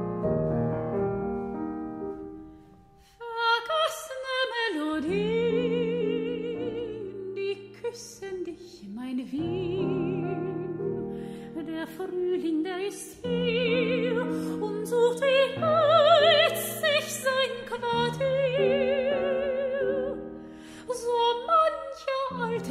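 Grand piano playing chords, dropping almost to silence about three seconds in; then a soprano sings a Wienerlied with wide vibrato over the piano accompaniment.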